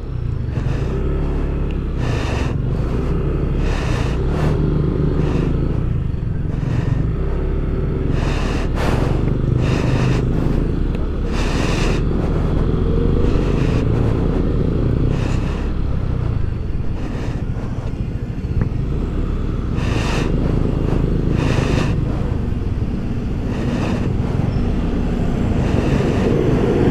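Yamaha Aerox scooter's single-cylinder engine running steadily as it is ridden along the road, its pitch shifting a little with the throttle.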